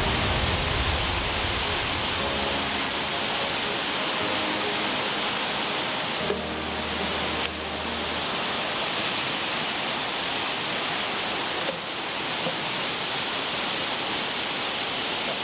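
Steady rushing of water, an even hiss that holds throughout, with small dips where the footage is cut.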